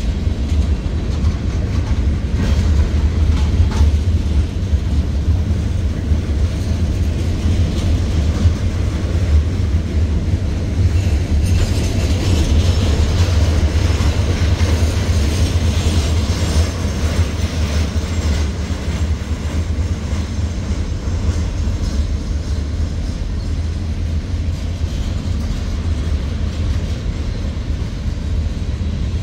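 Freight cars of a Norfolk Southern mixed freight train rolling steadily past close by, their wheels on the rails making a continuous low rumble. A harsher high-pitched wheel noise swells for several seconds in the middle.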